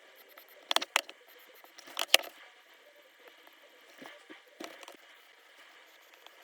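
Hot soldering-iron tip pressed into the polymer frame of a Glock 30SF while stippling, the plastic bubbling with small crackles and pops. They come in three short spells: a pair about a second in, the loudest pair around two seconds, and softer ones between four and five seconds. The bubbling is the cue to lift the iron.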